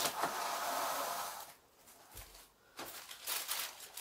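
Plastic cling film being pulled off a large food-service roll, a continuous rasp for about a second and a half. After a short pause comes a run of crinkling and rustling as the film is pressed around a pan.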